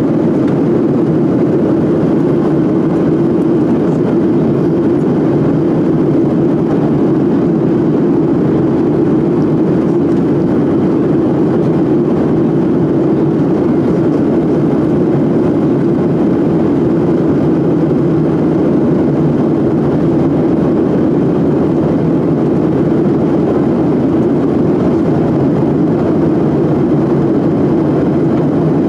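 Steady cabin drone of an airliner in flight: engine and airflow noise, unchanging throughout.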